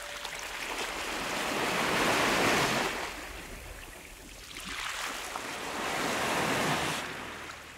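Ocean surf washing onto a shore: two waves that each swell up and die away over a few seconds, fading out near the end.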